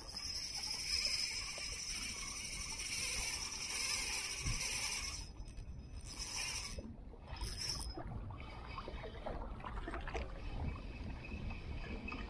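Spinning reel being cranked on a lure retrieve, its rotor and gears whirring as a steady high hiss that breaks off a few times between about five and eight seconds in. A low rumble of water at the shoreline runs underneath.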